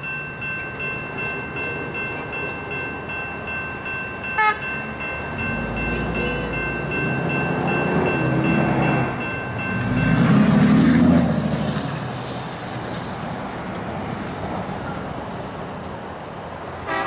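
A distant diesel locomotive horn, held as one long steady chord, cuts off about ten seconds in. Under it a low rumble swells through the middle and then fades.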